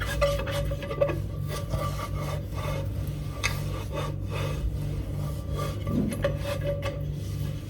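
A cloth rubbed in quick, irregular strokes over a wet microwave tray, wiping off the excess water after washing.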